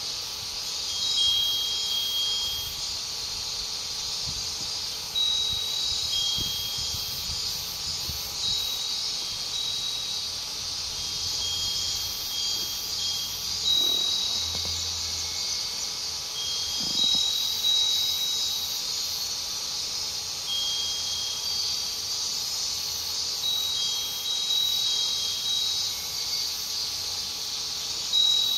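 Japanese glass or metal wind chime (fūrin) ringing in short, clear high tinkles at irregular intervals, a few seconds apart, over a steady high-pitched insect chorus.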